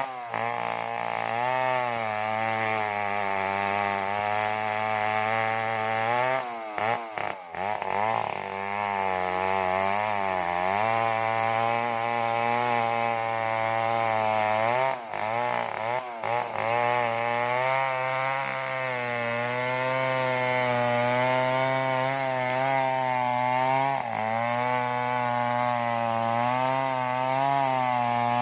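Large two-stroke chainsaw cutting through a felled mahogany log at high revs, its engine note wavering under load. The revs dip and recover briefly twice, about a quarter and about half of the way through.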